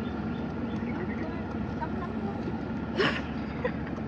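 A motor hums steadily over water and wind noise, with one short sharp sound about three seconds in.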